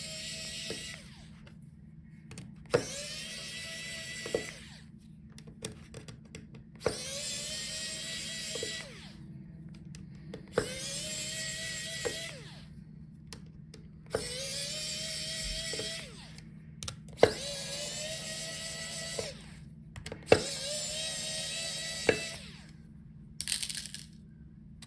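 Small electric screwdriver backing out the tiny screws of a laptop palmrest assembly, in about seven short runs. Each run spins up with a rising whine and then holds steady for a second or two. Sharp clicks fall between the runs.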